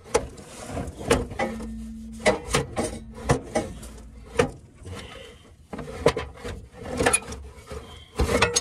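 A loose catalytic converter being wiggled and slid out from under a car, its metal knocking and scraping against the underbody in a run of irregular clunks and rubs.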